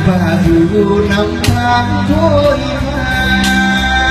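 A man sings a Vietnamese ballad into a microphone over an amplified instrumental backing with sustained low bass notes, heard through a PA system.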